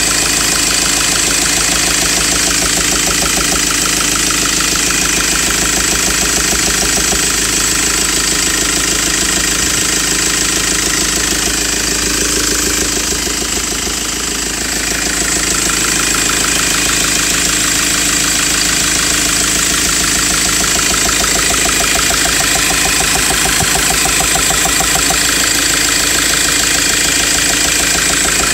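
Ford Transit engine idling with a fast, regular knock. The sound is steady, dipping slightly in loudness about halfway through.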